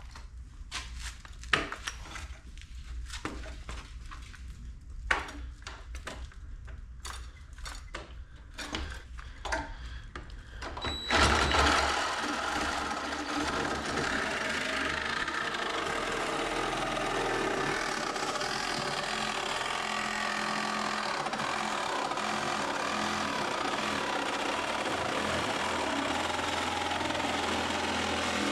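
Scattered knocks and clicks of tools being handled on the car. About a third of the way in a power tool starts abruptly and runs steadily while cutting into the rusted sheet-steel floor pan.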